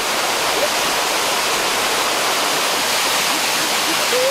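Steady rush of a waterfall cascading onto rocks and a pool.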